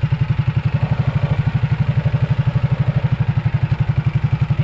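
Small fishing boat's engine running steadily at low speed, a rapid, even low thumping of about a dozen beats a second.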